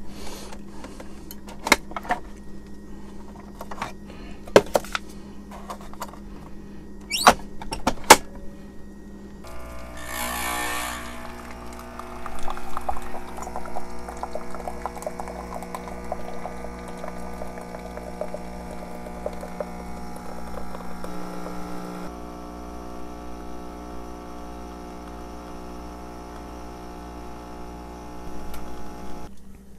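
Tassimo pod coffee machine being handled and run: a few sharp clicks and knocks, then about ten seconds in the pump starts with a brief hiss and runs with a steady buzzing drone as coffee streams into the mug.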